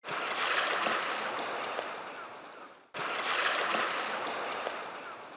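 Ocean surf washing up on a beach, two waves in a row: each comes in suddenly and fades away over about three seconds.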